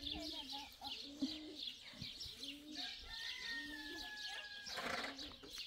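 Birds calling: a quick run of high chirps repeating throughout, with short, lower-pitched calls between them, and a brief burst of noise near the end.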